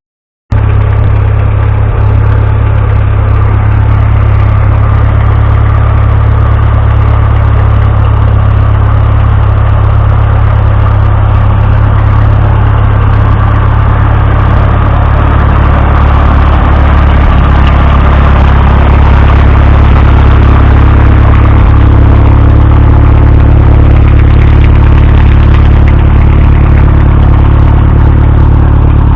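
Case 350 tractor's gasoline engine running steadily through its newly fitted manifold and relocated old muffler. There is a half-second break in the sound right at the start.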